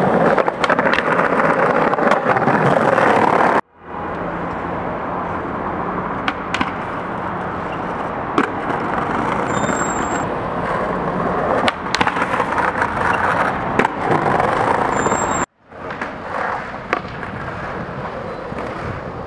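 Skateboard wheels rolling on smooth pavement, with a few sharp clacks of the board popping and landing. The sound cuts out abruptly twice.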